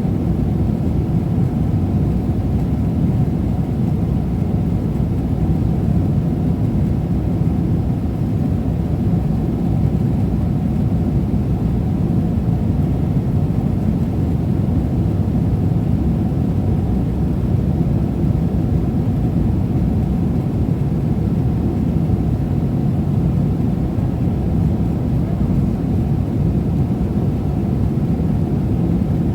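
Steady low rumble of a Boeing 777-300ER heard inside the passenger cabin, an even noise that holds the same level throughout.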